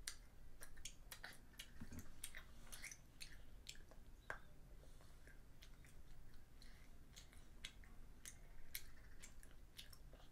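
Quiet chewing and biting of a piece of white chocolate by a young child, with irregular short clicks and snaps from the mouth.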